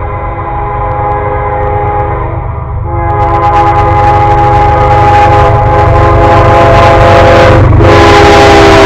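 Locomotive horn sounding a long, steady multi-note chord over the rumble of an approaching freight train. It grows louder about three seconds in, breaks briefly near the end, and its pitch begins to drop as the locomotive passes.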